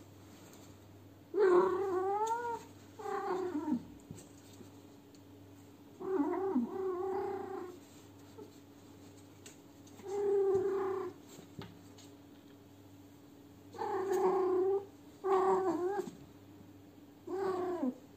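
Female cat in heat yowling: seven drawn-out calls of bending pitch, each about one to two seconds long, with pauses of a second or more between them.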